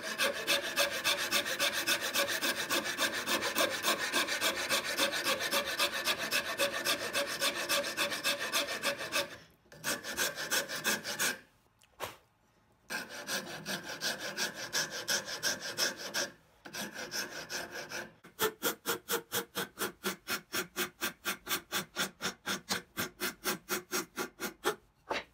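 Wood rasp filing a hardwood screwdriver handle, with quick back-and-forth scraping strokes. The strokes stop briefly a few times, then run on evenly at about three a second near the end.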